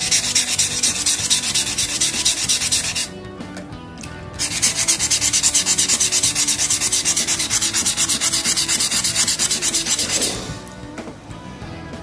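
Wet sandpaper rubbed quickly back and forth along a stainless steel pet grooming scissor blade to scrub off rust: fast, even rasping strokes. They stop for about a second some three seconds in, start again, and stop about ten seconds in.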